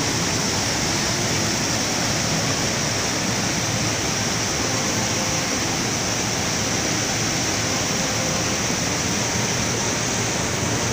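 Mountain torrent rushing over rocks in white water, a loud, steady, unbroken rush.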